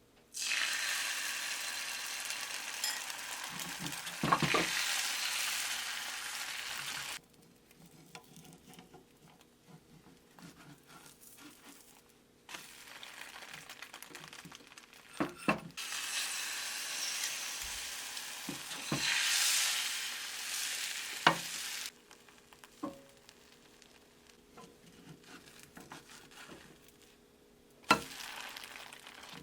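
Food sizzling in a frying pan in two stretches of several seconds each, the first from just after the start to about seven seconds in and the second from about twelve to twenty-two seconds in, each starting and stopping abruptly. Scattered sharp clicks and knocks of utensils on cookware run through it.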